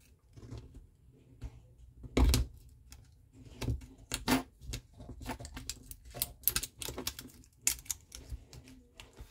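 Irregular light clicks and crinkles of plastic and metal as a 2032 coin-cell battery and a plastic key-fob case are handled, with a sharper click about two seconds in and a quicker run of clicks later on.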